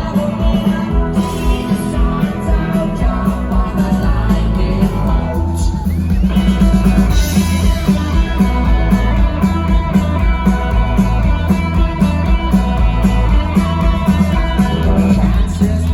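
Live rock band playing with guitar, a steady drum beat and singing, loud and dense.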